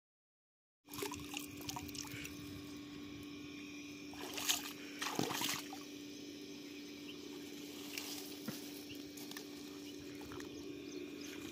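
Shallow river water sloshing and trickling as a fish and net are handled at the water's edge, starting about a second in, over a steady low hum. Two short, louder splashes or handling noises come about halfway through.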